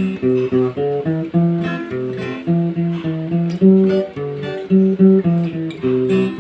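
Instrumental break in a song: guitar playing chords in a steady rhythm.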